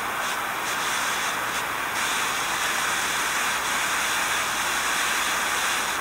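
Jet lighter flame burning with a steady hiss.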